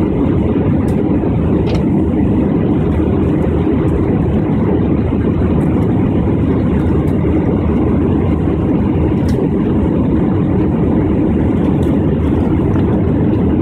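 Steady, even rumble of a jet airliner's engines and the rushing air, heard inside the passenger cabin while climbing after take-off.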